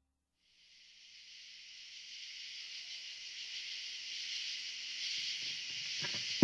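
A steady hiss fades in and slowly builds, leading into the soundtrack music. Faint low notes come in near the end.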